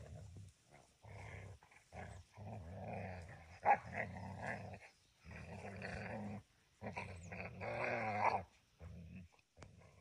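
Two dogs growling at each other in rough play: a string of about eight growls, some over a second long, with one sharper, louder snap a little before the middle.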